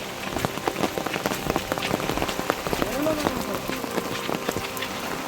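Heavy monsoon rain falling, with many large drops tapping irregularly on a hard surface over a steady hiss.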